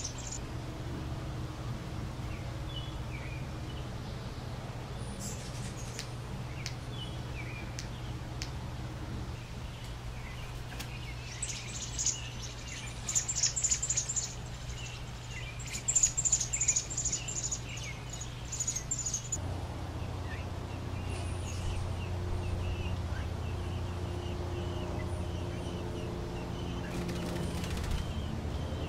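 American robin nestlings begging for food with rapid, very high-pitched chirps in two bursts around the middle, as a parent feeds them, over a steady low hum.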